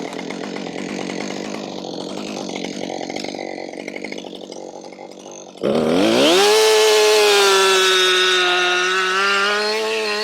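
Two-stroke chainsaw running at low speed, then opened up to full throttle about five and a half seconds in. It runs at high revs to the end, its pitch dipping slightly under load as it bucks through a log.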